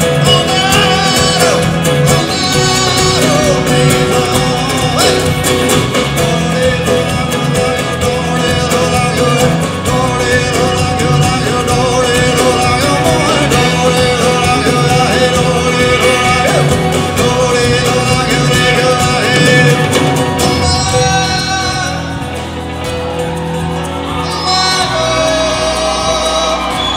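Live band playing a folk-rock song, acoustic guitar and keyboard with a lead singer, in a large hall. The music eases back about twenty seconds in, then picks up again near the end.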